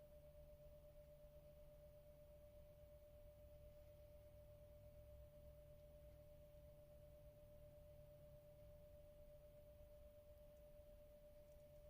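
Near silence: a faint steady pure tone with a low hum under it.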